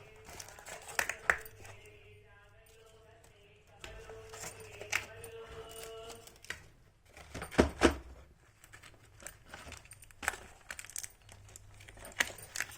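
Small plastic toy pieces and packaging being handled: scattered clicks and taps with some crinkling, and a cluster of loud knocks and clatter near the middle. A steady pitched hum sounds under the first half.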